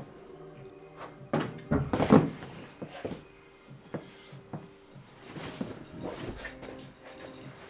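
Knocks and thuds of a climber on a wooden home climbing board: shoes and hands striking plywood and holds, with the loudest thuds about two seconds in as he comes off the wall onto the floor padding. Scattered lighter knocks follow as he resets and starts again.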